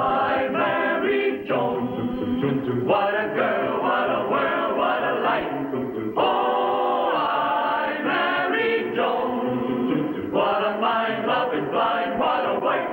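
Sitcom closing theme song sung by a choir, in phrases with short breaks between them.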